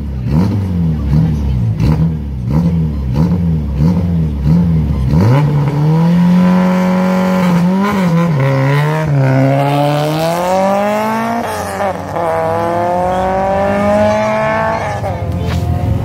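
Peugeot 106 rally car's engine blipped rhythmically at the start line, about two revs a second. It is then held at high revs and launched, accelerating hard away with sharp drops in pitch at the gear changes, and the sound fades near the end.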